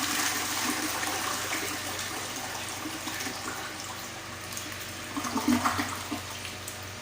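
A restroom fixture flushing: rushing water that starts strong and tapers off, with a louder surge about five seconds in.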